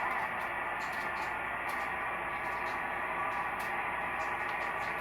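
Steady radio static and hiss from a portable HTOOL SDR-V5 software-defined receiver played through a speaker while tuned to a shortwave band, with faint steady tones under the noise.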